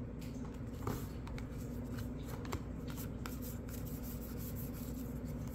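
A stack of Bowman baseball cards being flipped through by hand, each card sliding off the pile onto the next: soft scattered clicks and rustles of card stock, several a second.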